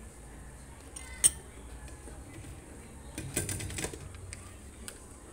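Irregular clinks and knocks of kitchenware: one sharp clink about a second in, then a short cluster of clatter a little past the middle, over a faint low steady background.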